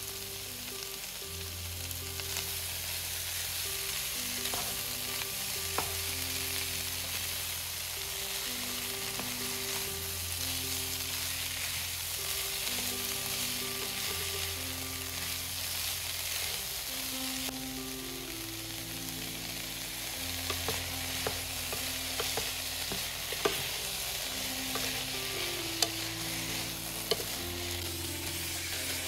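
Food frying in a hot pan with a steady sizzle as it is stirred, with a few sharp clicks of a utensil against the pan in the second half. Soft background music with a slow, stepping bass line plays underneath.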